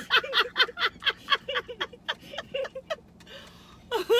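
A woman laughing: a quick run of ha-ha pulses that trails off about three seconds in, with a short burst of laughter again near the end.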